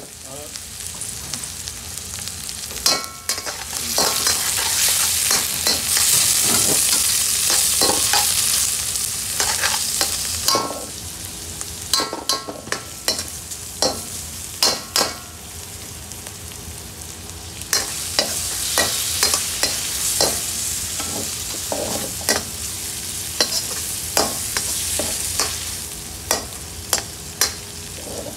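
Chicken tikka pieces and onions sizzling in a hot wok while a metal ladle stirs them, scraping and clanking against the pan. The sizzle swells and eases twice, and sharp ladle knocks come often, most thickly near the end.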